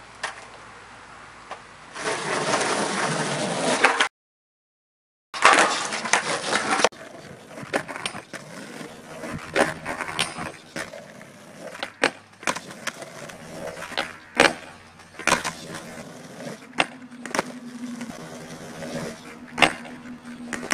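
Skateboard wheels rolling on concrete, then a run of sharp clacks and knocks as the board pops, strikes the ground and hits a rail. A low steady hum comes in near the end.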